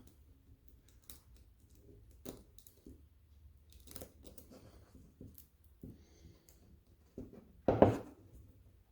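Torquemaster spring assembly parts being handled and fitted by hand: scattered small clicks and scrapes, with one louder clatter near the end.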